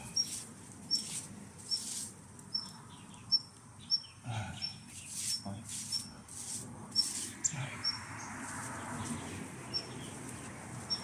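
A short, high chirp repeating steadily, about two to three times a second, over scattered sharp clicks.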